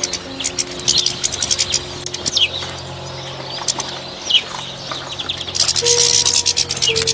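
Small songbirds chirping and twittering in quick high notes with a few short falling whistles, ending in a dense run of rapid chirps. Soft background music with long held notes plays underneath.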